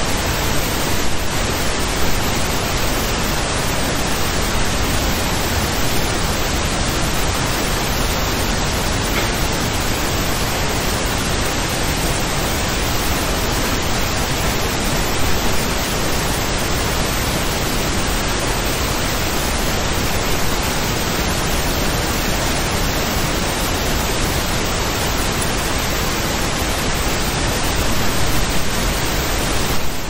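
Steady white noise: an even, unchanging hiss across the whole range, used as a sleep sound.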